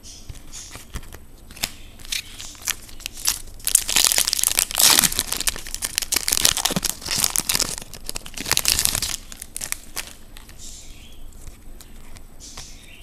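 Foil wrapper of a trading-card pack being torn open and crinkled, densest and loudest for about five seconds in the middle, with scattered light clicks and rustles before and after.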